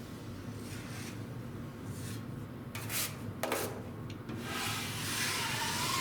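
Drywall knife scraping joint compound over drywall screw heads: a few short strokes around the middle, then a longer, louder scrape near the end.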